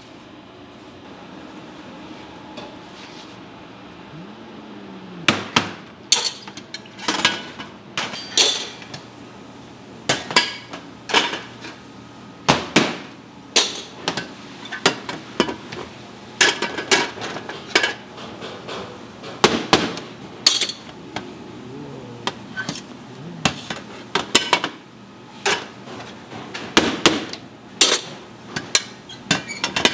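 Hard clacks and knocks of black drum-shaped baking moulds being opened and handled on a stainless steel counter to release the baked drum buns. They start about five seconds in and come irregularly, one or two a second, over a steady low hum.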